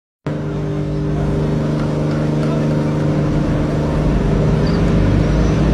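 Fishing trawler's engine running steadily: an even, unchanging drone, with a deeper rumble building toward the end.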